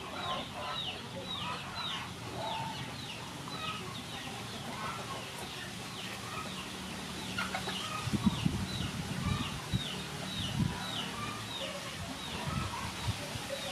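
Chickens clucking and peeping: a high, short falling note repeats about twice a second over scattered lower clucks. A few dull knocks stand out between about eight and eleven seconds in.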